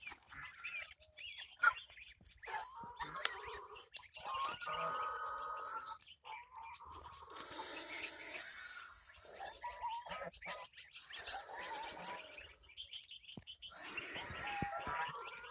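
White domestic ducks hissing angrily at a threat, three long hisses of one to two seconds each, with throaty calls between them and the high peeping of their ducklings.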